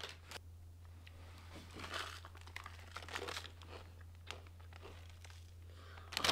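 A chip bag crinkling and rustling as it is handled and tipped up to the mouth, with irregular crunching of chips, over a steady low hum.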